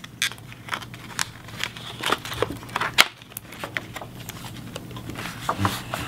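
Irregular light clicks and rustles of stiff cardstock and a thin wire being handled, with one sharper click about three seconds in.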